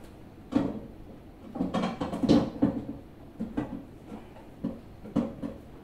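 Clunks and scrapes of a 43-inch flat-screen TV being worked onto its wall-mount bracket, with one side blocked from seating. There is a sharp knock about half a second in, a cluster of knocks and scraping around two seconds in, then a few lighter knocks.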